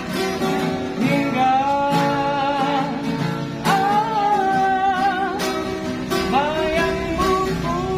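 Street busker singing to his own acoustic guitar: steady strummed chords under long, wavering sung notes, in three phrases with short breaks between them.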